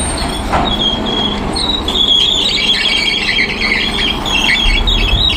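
Volvo EC210B hydraulic excavator working at a derailed steel freight wagon: high, wavering metallic squealing over the low rumble of its diesel engine.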